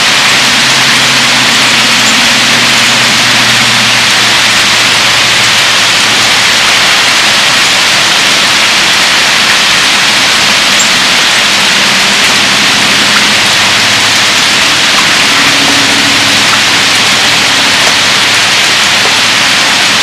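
Heavy rain pouring steadily, a dense even hiss, with a faint low hum underneath that shifts in pitch now and then.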